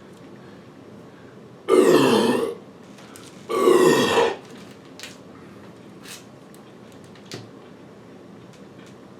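Two loud burps from a man chugging carbonated Coca-Cola Zero, each just under a second long and about two seconds apart, the first falling in pitch at its end. A few faint clicks follow.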